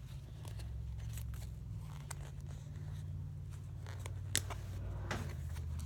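Steady low hum of a running ceiling fan, with a few light clicks and rustles as small knit pet socks are handled; one sharper click about four seconds in.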